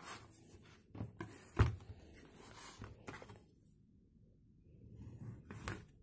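Knocks and scrapes of a crusty bread loaf and a bread knife being handled on a plastic cutting board: several sharp knocks, the loudest about a second and a half in, with crust rustling and scraping between them.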